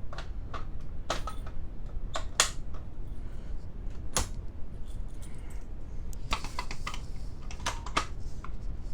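Manual fire alarm pull stations being handled and pulled: irregular sharp clicks and clacks, with a quick run of clicks about six seconds in.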